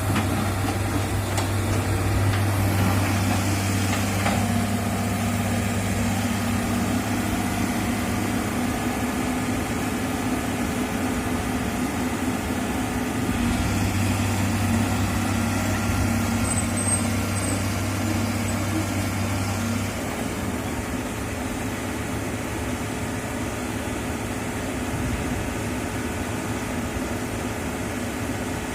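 Excavator's diesel engine running steadily, its note shifting a little about halfway through and easing slightly in the last third.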